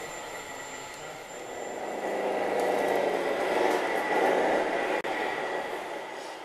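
Radio-controlled scale model trucks running: a steady noise from their drives and sound units with a faint thin whine, swelling louder in the middle. It breaks off sharply for an instant about five seconds in.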